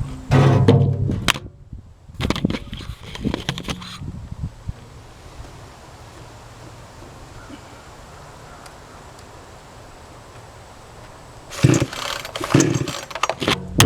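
Budget two-stroke gas chainsaw being pull-started: the engine fires briefly in the opening seconds with more bursts of pulling and sputtering, then a quiet spell of several seconds, then more loud pulling and firing near the end as it catches.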